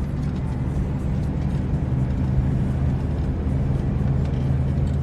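Car engine drone and road noise inside the cabin while driving at a steady speed.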